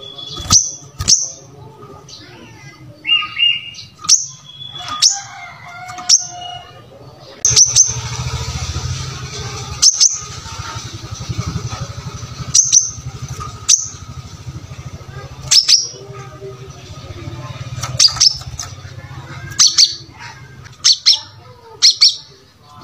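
Brown-throated sunbird (kolibri kelapa) calling vigorously: a string of short, sharp, high chirps every second or so, with a few brief lower notes between them. A steady low hum and hiss runs beneath, strongest in the middle stretch.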